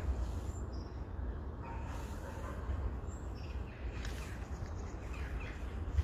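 Faint, scattered bird chirps over a steady low rumble.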